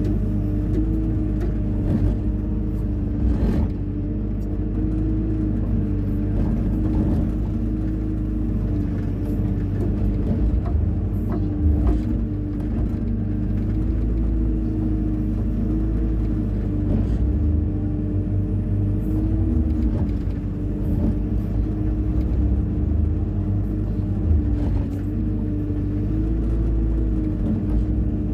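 Hyundai 140 wheeled excavator's diesel engine running steadily under working load, its pitch dipping and recovering slightly from time to time, over a heavy low rumble with a few light knocks.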